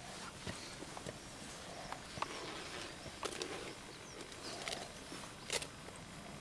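Quiet outdoor background with scattered soft clicks and rustles from footsteps and movement through dry grass and scrub, the strongest click about five and a half seconds in.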